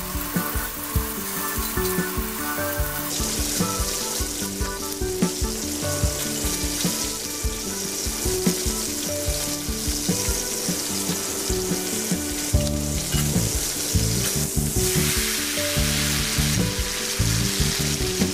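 Steak frying in garlic butter in a cast iron skillet: a steady sizzle that grows louder about three seconds in, over background music.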